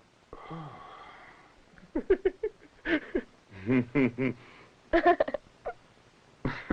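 People laughing in short quick bursts, with a soft murmur of voices just before.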